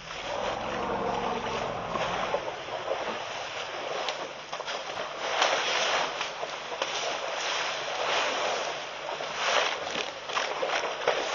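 Water splashing and sloshing as African elephants wade through the shallows of a waterhole, in irregular surges that are loudest about halfway through and again near the end.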